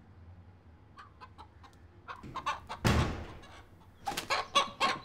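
Rooster clucking in short, repeated notes, sparse at first and louder and quicker near the end, with one thud a little under three seconds in.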